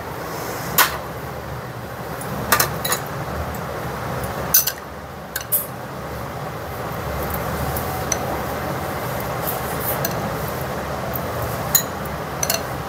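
A steel spoon clinking against glass bowls while serving a milky pudding: about half a dozen scattered sharp clinks over steady background noise.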